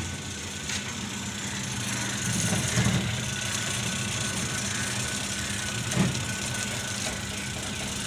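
An electric motor running with a steady low mains hum, and a short knock about six seconds in.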